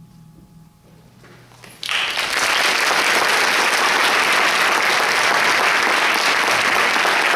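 The last low notes of a concert band's final chord fade out, then about two seconds in the audience breaks into loud, steady applause.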